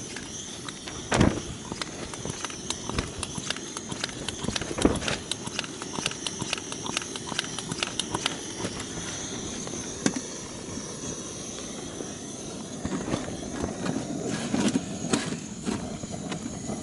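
MSR WhisperLite liquid-fuel stove burning with a steady hiss, under scattered clicks and knocks of metal camp gear being handled as the homemade aluminium box oven is set back over the burner. Two louder knocks stand out, about a second in and near five seconds.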